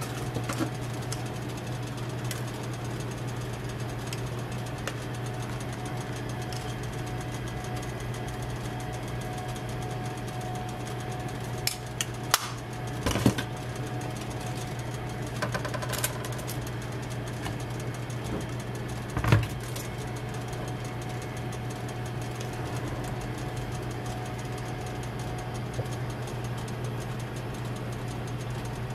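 Steady low machine hum, with a few sharp clicks and clatters of utensils on a stainless-steel tray about twelve to twenty seconds in, the loudest near the end of that stretch.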